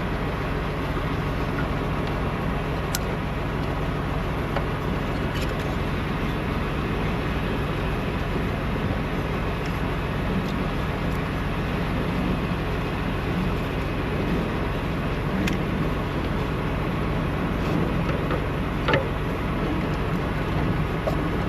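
Steady low mechanical rumble of a running engine or traffic, with a few light clicks scattered through it.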